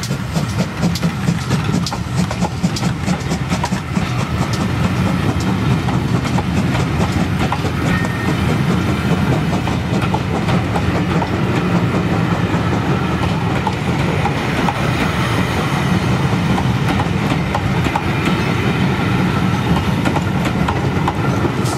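A rake of passenger coaches rolling past close by, their steel wheels clattering over the rail joints over a steady rumble.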